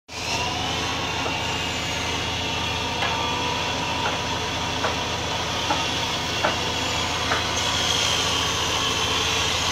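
Sawmill machinery running steadily: a low, throbbing motor hum with a steady high whine above it and faint ticks a little more than once a second.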